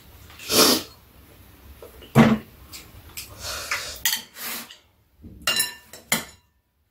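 Metal chopsticks and spoons clinking and scraping against bowls, a scatter of separate clinks with the sharpest a little over two seconds in.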